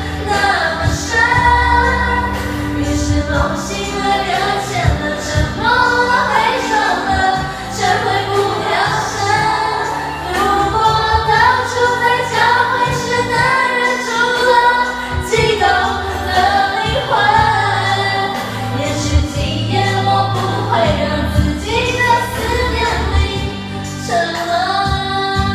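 Women singing karaoke into microphones over a pop backing track with bass and a steady drum beat.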